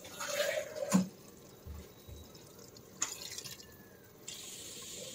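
Water poured from a steel tumbler into an aluminium pressure cooker of chicken, a steady splashing pour near the end, after a couple of light knocks.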